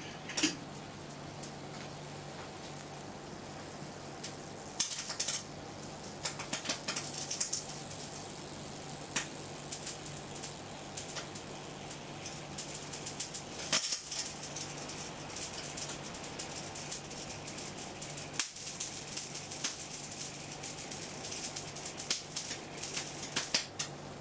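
High-voltage arcs crackling and snapping irregularly inside a plasma TV panel driven at around 4,000 volts, over a steady low hum. A high-pitched whine drops in pitch as the power comes on and slowly climbs back.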